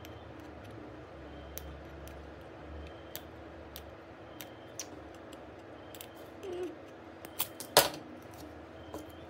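Scattered light clicks and taps of small tools and parts being handled during a phone repair, with one sharper click a little before eight seconds, over a faint steady hum.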